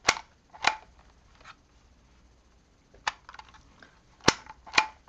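Handheld embossing label maker being squeezed to punch letters into label tape: about five sharp, loud clicks spread irregularly, with fainter ticks between them.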